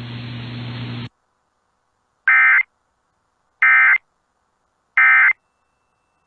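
Radio hiss with a low hum that cuts off about a second in, then three short, identical warbling data bursts about 1.4 seconds apart: the Emergency Alert System end-of-message (NNNN) tones that close a NOAA Weather Radio warning.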